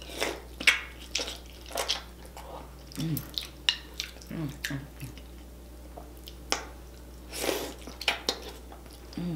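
Close-up wet eating sounds of someone chewing a sauce-drenched boiled potato: irregular sharp lip smacks and squelches, with a few brief hums of the voice.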